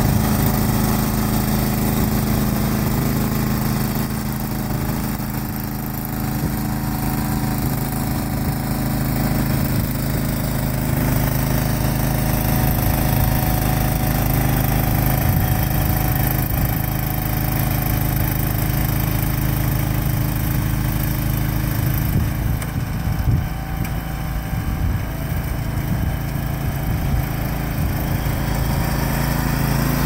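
John Deere GT242 garden tractor's engine running steadily under load, driving a front-mounted snowblower that is throwing snow.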